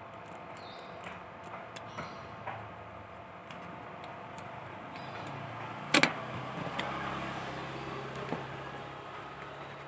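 Scattered small clicks of handling, with one sharp, loud snap about six seconds in, over a low steady hum.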